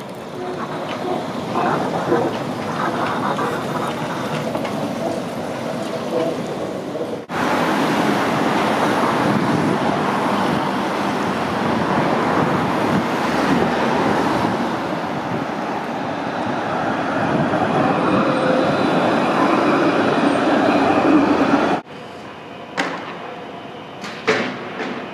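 Trams and street traffic rolling by, in three shots cut together: first a Translohr rubber-tyred tram running past close, then a longer stretch of louder, steady rolling and traffic noise, then a quieter street with a few sharp knocks near the end.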